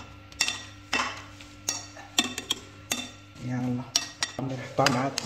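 Two serving spoons tossing a chopped tomato, cucumber and onion salad in a bowl, with irregular clicks and scrapes as the spoons knock against the bowl.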